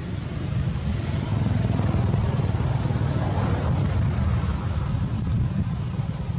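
Steady low outdoor rumble, with a thin, steady high-pitched tone above it and no distinct monkey calls.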